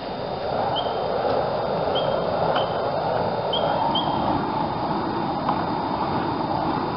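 A bird gives five short, high chirps in the first four seconds or so, over a steady rushing background noise.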